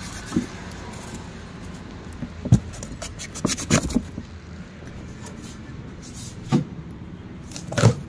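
A cardboard box being cut open with a small metal blade: scraping along the packing-tape seam and handling of the cardboard, with several sharp knocks and clicks, the loudest near the end as the flaps come open.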